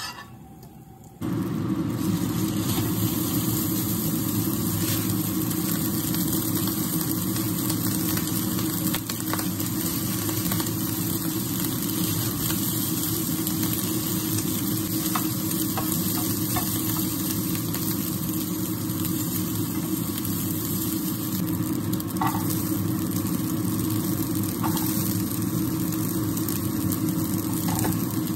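Food frying in a pan, a steady sizzle that starts abruptly about a second in, over a steady low hum, with a few faint clinks of utensils.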